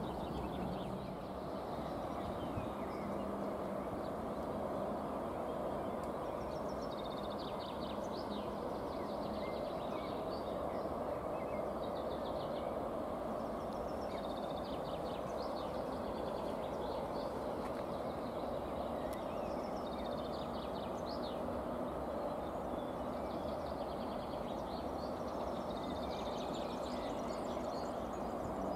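Small birds chirping on and off in short high calls over a steady, even background hum.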